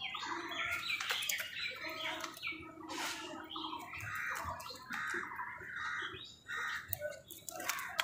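House crows and other birds calling: an unbroken, overlapping chatter of short squawks and chirps, with a few sharp clicks.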